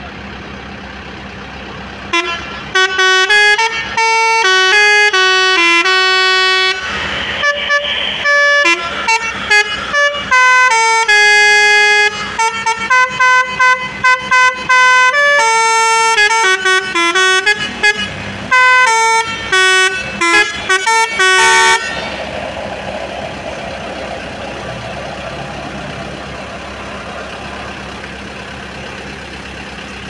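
Telolet basuri multi-tone musical horn playing a tune of quick short notes and longer held notes, starting about two seconds in and cutting off suddenly after about twenty seconds.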